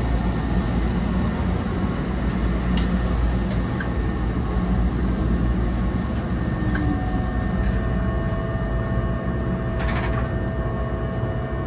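Cabin noise of the Eizan Electric Railway "Hiei" electric railcar moving slowly along a station platform: a steady low rumble and motor hum, with a couple of faint clicks and a thin steady tone that comes in a little past halfway.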